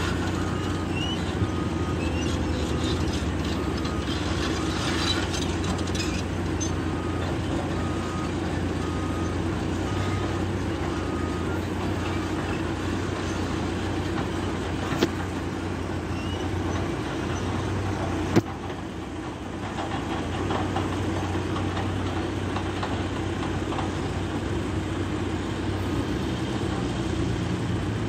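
Heavy diesel machinery running steadily, a constant low engine drone, with a reversing alarm beeping about once a second that stops about halfway through. Two sharp knocks are heard in the middle, the second followed by a brief dip in the engine sound.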